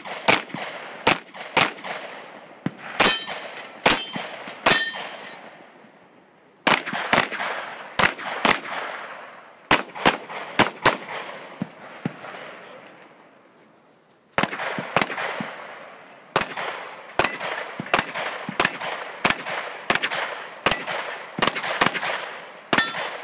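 Gunshots fired in quick strings, pistol shots at the start, each with an echoing tail, and a metallic ring after some of them. The firing breaks off twice, the longer pause of about three seconds a little past the middle.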